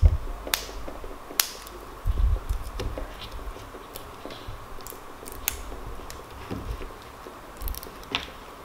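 A small plastic toy wrapper being handled and pulled open by hand: scattered crinkles and sharp clicks, with a dull thud about two seconds in.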